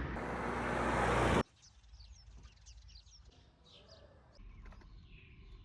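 A loud rushing noise that swells for about a second and a half and then cuts off suddenly, followed by small wild birds chirping in quick, scattered high calls.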